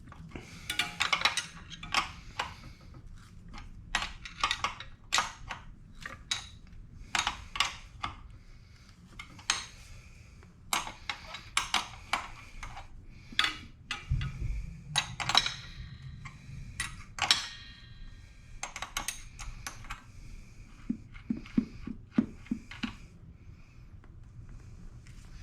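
Hand tools and metal parts clinking and clattering in irregular sharp clicks, some with a brief metallic ring, during disassembly of an electric scooter's front end. A short quick run of low taps comes about three quarters of the way through.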